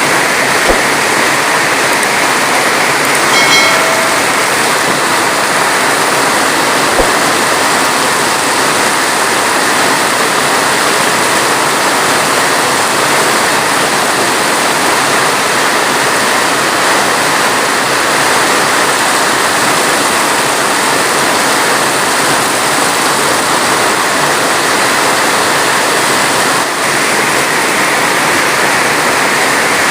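Heavy rain falling in a steady, dense hiss, with no thunder. A brief faint pitched tone sounds about three and a half seconds in.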